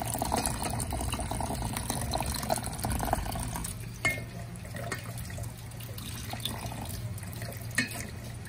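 Water running from a hose into a metal bowl while goat intestines are rinsed and handled in it: a steady splashing that turns quieter about halfway through, with a couple of sharp knocks.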